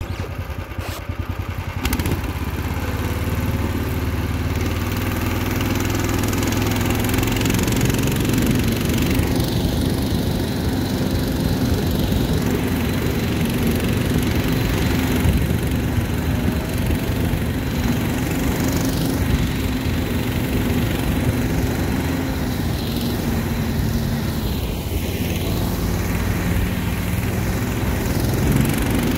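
Small single-cylinder engine of a Snowdog motorized tow unit, running steadily as it pulls two sleds over snow. It picks up about two seconds in.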